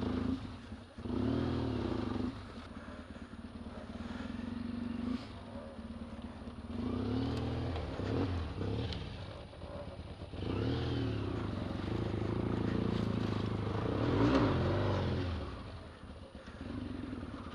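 Off-road trail motorcycle engine revving up and dropping back four times, running at low revs in between, as it is ridden through deep muddy ruts.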